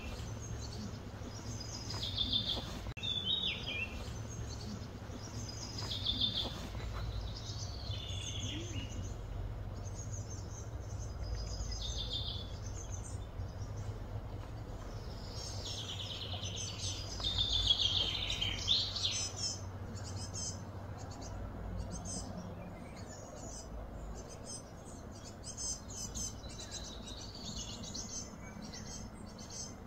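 Wild birds calling repeatedly in short, pitch-sliding chirps and trills over a low steady hum. The calls are busiest in the first twenty seconds, then give way to fainter, rapid high chirping.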